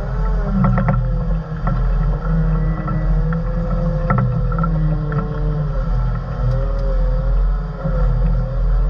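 Motor grader's diesel engine running steadily under load while its moldboard cuts and rolls dirt into a windrow, heard from inside the cab. A wavering whine rides over the engine rumble, with a few sharp clicks and knocks.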